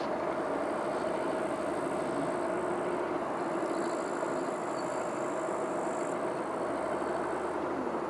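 Steady jet engine noise across an airfield: a constant hum with a faint held tone and no rise or fall.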